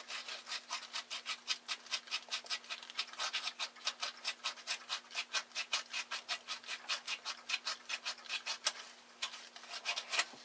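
Emery cloth being rubbed back and forth on an aluminium antenna-trap tube in quick, even strokes, about five a second, scouring off corrosion; the strokes slow and stop near the end.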